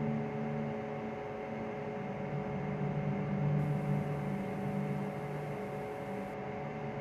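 A steady low droning hum of several held tones over a hiss, the lowest tones swelling and fading slightly. A faint high hiss comes in about halfway and drops out near the end.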